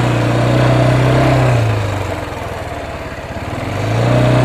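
Small motorcycle engine running at a steady pace, easing off about a second and a half in and picking up again near the end.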